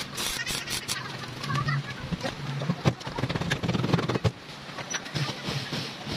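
Arc welding crackling for about the first second while a sidecar wheel spindle is welded onto its hub mount, then it stops. After that come a few sharp metal knocks and handling noises as the sidecar wheel is fitted.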